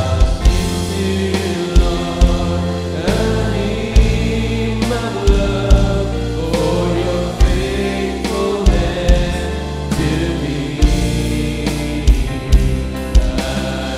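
Live Christian worship song: a male worship leader sings over a band with a steady drum beat, bass and guitars, with other voices singing along.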